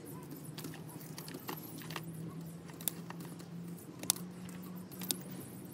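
Scattered sharp metallic clicks and clinks of hand tools and copper transformer leads being handled, a few at irregular intervals, over a faint steady low hum.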